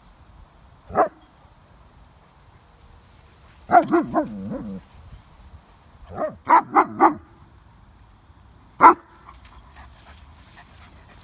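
A young German shepherd play-barking to get another dog to play. There is a single bark about a second in, then a run of barks trailing into a drawn-out grumbling whine, then a quick volley of three or four barks, and one last bark near the end.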